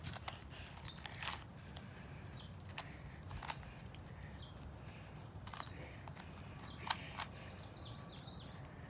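Layers of a plastic 2x2x3 tower cube puzzle being twisted by hand: scattered sharp plastic clicks and clacks, the loudest about 7 seconds in, over a low steady room hum.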